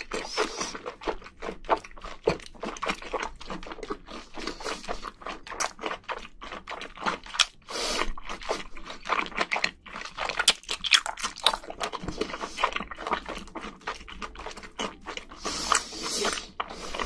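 Close-miked chewing of spicy braised seafood: a steady run of wet smacking and clicking mouth sounds.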